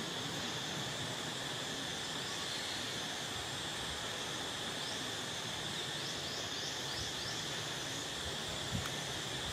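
Steady outdoor forest ambience carried by a continuous high insect drone, with a few faint short chirps about six to seven seconds in and a light thud near the end.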